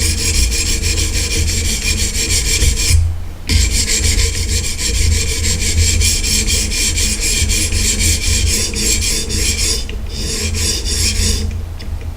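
Fine diamond stone of a guided knife-sharpening system rasping along a steel knife edge in quick, even back-and-forth strokes. It breaks off briefly twice and stops shortly before the end.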